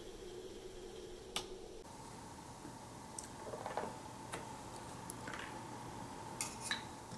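Scattered light clicks and taps of small parts being handled on a tabletop, about eight in all, over a faint steady hum.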